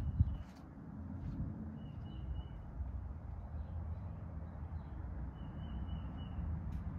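Hampton Bay Princeton II ceiling fan running with a low, steady hum and air rush, after a brief thump just at the start. Two short high-pitched tones come through, about two seconds in and again near the end.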